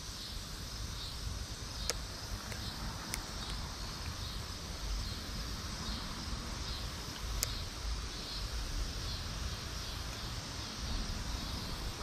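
Steady outdoor creekside ambience: an even, high insect drone over a low rumble, with a few faint sharp clicks, the clearest about two seconds in and about seven seconds in.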